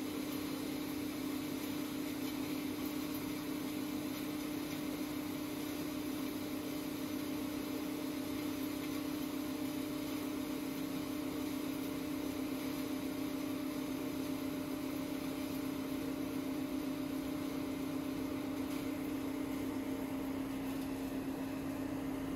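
Large hammer mill wood crusher running steadily, crushing dry wood chips into sawdust: a steady hum over a constant rushing noise.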